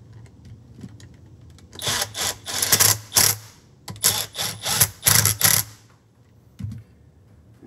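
Cordless power driver running in the bolts of a Can-Am Smart-Lock front differential case, in a string of short bursts between about two and six seconds in.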